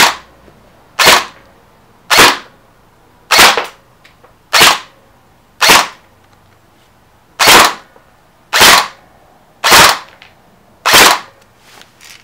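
Elite Force G36 Elite airsoft electric rifle by ARES firing single shots, about one a second, ten in all with a short pause near the middle. Each shot is a sharp clack from the gearbox cycling and the electronic blowback bolt.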